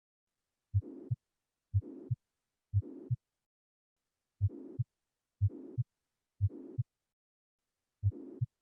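Recorded heart sounds with a systolic murmur: each beat is a low thump followed, about 0.4 s later, by a second thump, with a hissing murmur filling the gap between the two. The beats come about once a second in runs of three, separated by short silent gaps.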